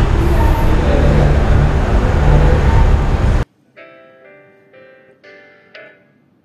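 A loud, dense rushing noise with a low hum cuts off suddenly about three and a half seconds in. After it come soft, ringing keyboard notes, about two a second, as background music.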